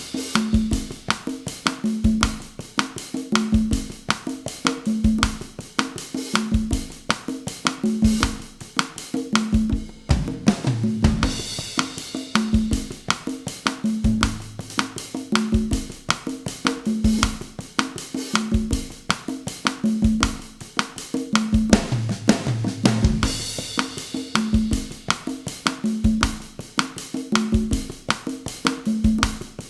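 Bossa nova rhythm on a drum kit with congas at 160 bpm, a steady repeating groove of kick, snare and pitched conga tones. A cymbal crash rings out twice, about eleven and twenty-three seconds in, marking each new phrase of the loop.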